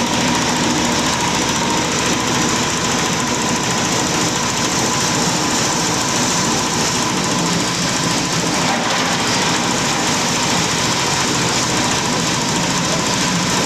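Small single-cylinder diesel engine running steadily, belt-driving a multipurpose chopper whose rotor is shredding leafy branches fed into its hopper. The result is a loud, steady mechanical clatter with a high hum running through it.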